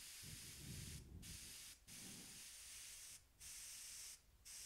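Faint hiss of an air-powered gravity-feed spray gun laying on automotive base coat, in short passes that stop briefly about four times.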